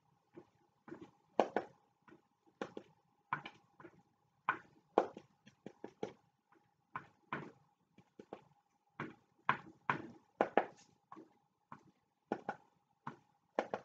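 Edge of a folded, paint-loaded piece of cardboard tapped repeatedly against a painting board to print tree branches: irregular sharp taps, about two a second, over a faint steady hum.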